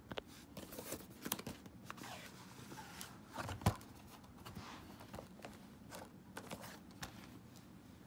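Plastic Blu-ray cases and their cardboard box being handled: a run of clicks, scrapes and rustles, with one louder knock about three and a half seconds in.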